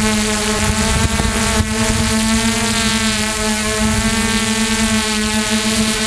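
Hexacopter's six electric motors and propellers running in a steady whine as it descends to land.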